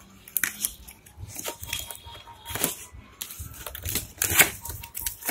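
Cardboard pen tablet box scraping and rustling as hands slide and turn it against its paper sleeve, in several irregular strokes, the loudest about four seconds in.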